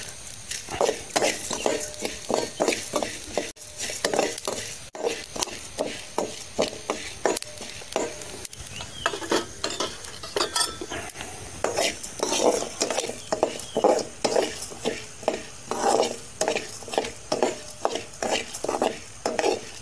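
Metal spoon stirring coriander seeds in a steel kadai, scraping strokes about two a second over a light sizzle of the seeds frying in a little oil.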